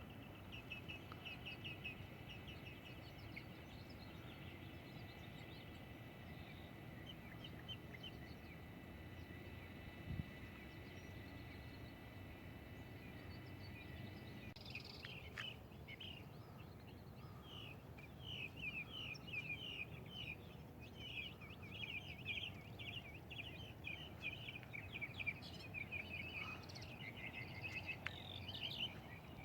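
Birds chirping and calling over a steady outdoor background noise, with a steady high trill for about the first half, then many quick high chirps in the second half.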